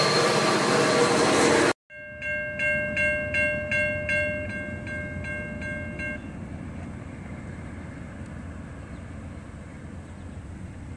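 Freight train cars rolling past close by, loud, cutting off suddenly about two seconds in. Then a railroad grade-crossing bell rings about three strokes a second for about four seconds and stops, leaving a faint low rumble.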